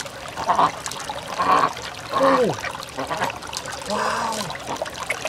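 Wet squelching and sloshing as hands pull and squeeze the soft flesh of a large freshwater pearl mussel in its open shell. Short voice-like tones come in twice, one falling in pitch a little after two seconds and one held steady near four seconds.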